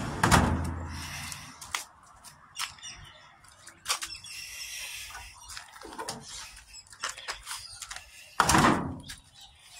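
Homemade metal drawer under a ute tray, running on nylon strips and rollers, being pushed and worked in its runners. There is a loud knock at the start, scattered clicks and a short scrape in the middle, and another heavy bump near the end.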